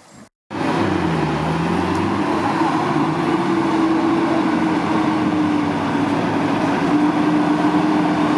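Off-road 4x4 SUV's engine revving hard as it drives along a rutted dirt trail. The sound starts abruptly about half a second in; the revs dip briefly about a second in, then hold high and steady.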